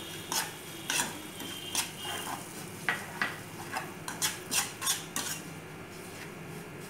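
Metal spoon scraping and clinking against a steel pan while stirring dry semolina with butter, in short irregular strokes about twice a second that stop about five and a half seconds in.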